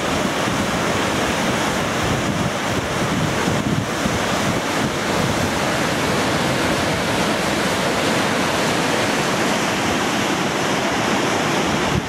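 Large waterfall rushing steadily, a continuous dense noise of white water, with wind buffeting the microphone.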